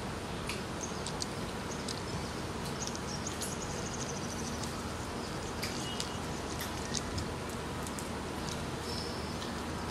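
Steady background hiss with scattered short, high-pitched bird chirps, including a quick run of twittering notes about three seconds in.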